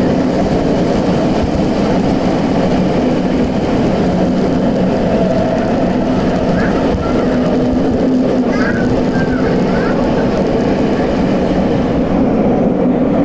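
Tokyo Metro 8000 series subway train running at speed through a tunnel, heard from inside the car: a loud, steady roar of wheels on rail with a low steady hum underneath.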